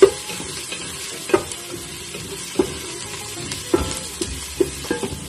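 Garlic and onion sautéing in oil in an enamel pot, a steady sizzle, while a wooden spoon stirs them and knocks against the pot about once a second.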